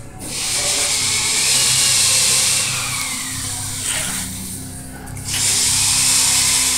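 Four-cylinder two-stroke Yamaha V-Max snowmobile engine, open-piped and built for drag racing, revved hard twice: a loud, harsh rasp whose pitch climbs and then falls away over a couple of seconds, then a second burst about five seconds in.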